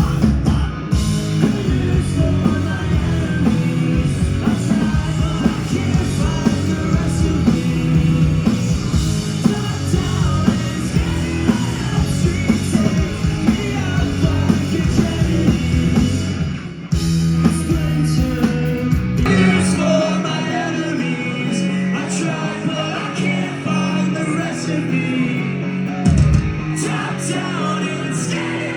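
Live rock band playing, with singing and guitar. About 17 seconds in the sound cuts abruptly to another passage with much less bass.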